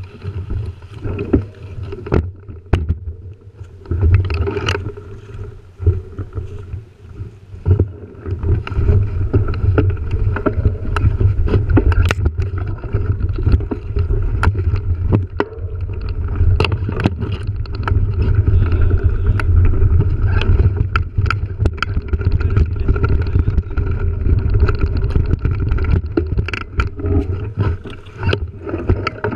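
Mountain bike riding down a dirt singletrack: a steady low rumble of tyres and wind, broken by frequent sharp clicks and knocks as the bike rattles over bumps, sticks and loose ground.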